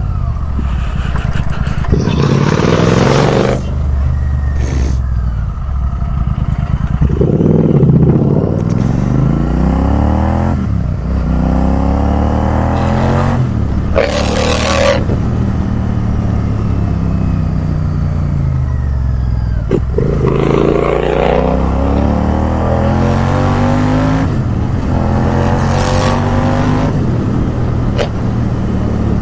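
Royal Enfield Interceptor 650's parallel-twin engine running loud through a custom exhaust with the silencer baffle removed. It revs up and falls away again several times as the bike is ridden, with a few short bursts of hissing rush.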